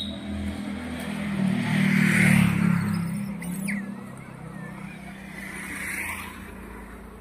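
A motor vehicle passing by on the road: its engine grows louder to a peak about two seconds in, then fades away. A fainter swell of the same kind follows near six seconds.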